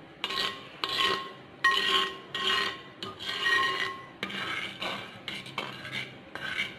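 A spoon scraping round the bottom and sides of a wide clay pot as simmering milk is stirred: repeated scraping strokes, roughly two a second, some with a faint ring.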